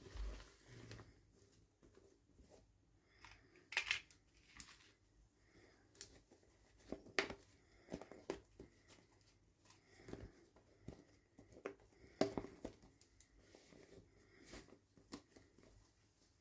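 Toy packaging being handled and opened by hand: irregular light clicks, crinkling and short tearing rustles, with a few louder sharp snaps spread through.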